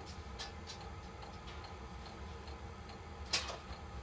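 Running diesel air heater, its fuel dosing pump ticking over a steady low hum, with one sharp clack about three seconds in.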